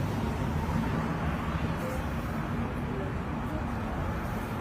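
Steady low rumble of street traffic noise, with faint voices in the background.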